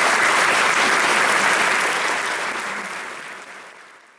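Audience applauding, a steady clatter of many hands that dies away over the last second or two.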